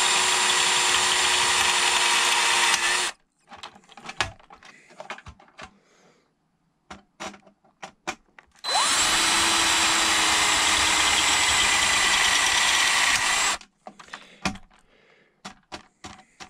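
Black+Decker cordless drill running steadily as it drills out the rivets on the back of a metal light fixture, stopping about three seconds in. After a few seconds of light clicks and knocks it runs again for about five seconds, then stops with more light clicks near the end.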